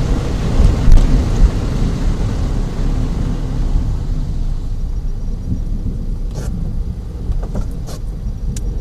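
Car driving through heavy rain and standing floodwater, heard from inside the cabin: a low rushing rumble of water and rain, loudest about a second in, with a few sharp ticks near the end.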